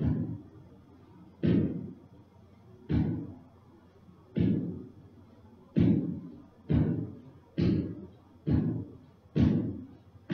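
Deep percussive thuds, each ringing out and dying away, a slow steady beat about every one and a half seconds that quickens to about one a second partway through.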